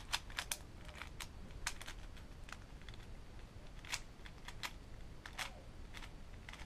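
YJ Windmill Cube being scrambled by hand: quiet, irregular plastic clicks as its layers are turned, with a few louder snaps along the way.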